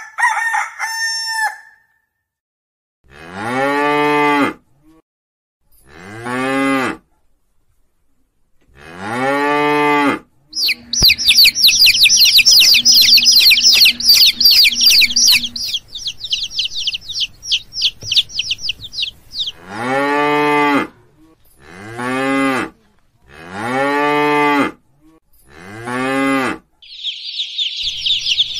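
Cattle mooing: seven calls of a second or so each, in two runs. Between the runs comes about nine seconds of rapid, high-pitched chirring, and it starts again near the end.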